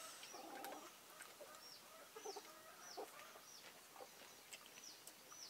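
Faint chickens: a run of short, high peeps that fall in pitch, about two a second, with a few lower clucks.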